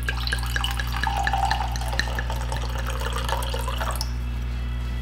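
Red wine poured from a bottle into a wine glass, splashing and dripping as it fills, with the pour ending about four seconds in. A steady low hum runs underneath.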